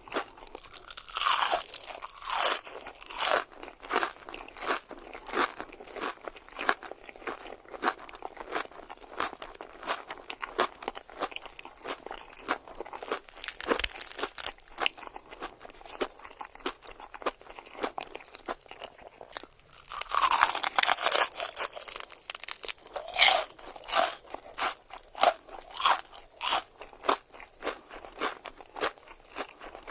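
Close-miked eating sounds: a person biting and chewing crunchy food, a dense run of crisp crunches throughout, with louder bites about a second in and again about two-thirds of the way through.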